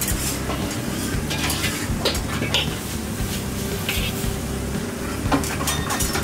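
Metal ladle scraping and clanking against a wok as beef ho fun noodles are stir-fried and tossed, with a few sharp clinks and a light sizzle over a steady low hum.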